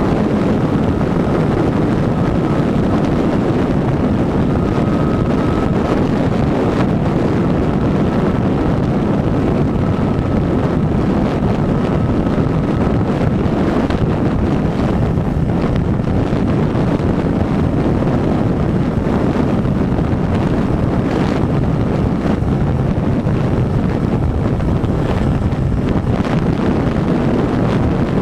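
Steady wind buffeting on the microphone of a camera mounted on a motorcycle at highway speed, with the motorcycle's engine and tyre noise underneath. A faint steady whine runs through the first half.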